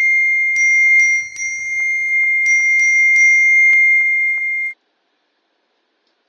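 Phone message-notification chime sounding over and over as a string of chat messages arrives: a bright bell-like tone re-struck about seven times in quick, uneven succession. It cuts off suddenly about three-quarters of the way through.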